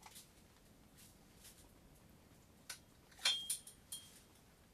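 Hands working a hook free of a caught fish without pliers: a few light clicks and rustles, loudest in a quick cluster with a brief squeak about three and a half seconds in.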